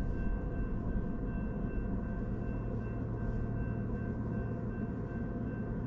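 Railroad crossing warning bell ringing steadily, heard from inside a car, over the low rumble of the car.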